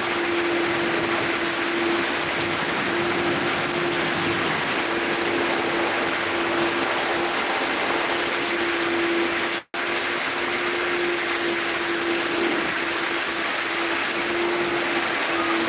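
Car wash machinery running steadily: a constant rushing noise with a steady mid-pitched hum. It cuts out for an instant near the ten-second mark.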